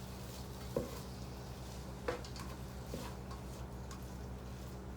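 Onions and bell peppers sautéing quietly in a skillet: a faint sizzle over a steady low hum, with a few light ticks about a second apart.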